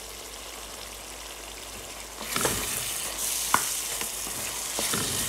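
Onion and spice masala sizzling in a pan. It gets louder about two seconds in as a wooden spatula stirs it, with a few sharp knocks of the spatula against the metal pan.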